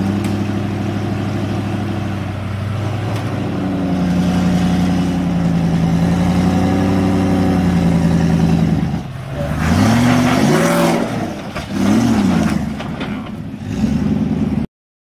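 Land Rover Discovery engine pulling steadily under load as the 4x4 crawls up a rock ledge, then revved up and down a couple of times. The sound cuts off suddenly near the end.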